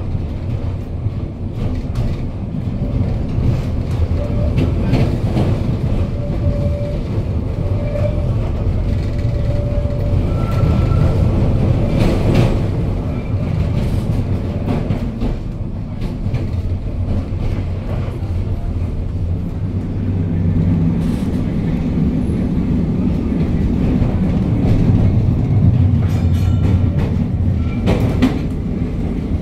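Historic electric tram running along city street track: a steady low rumble from the wheels and running gear, with frequent clicks and knocks of the wheels on the rails.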